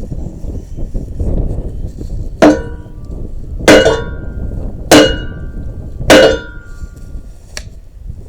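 Four hammer blows on the steel of a skid steer wood splitter, a little over a second apart, each ringing briefly: the blows are to knock loose a welded part after some of the weld has been ground off.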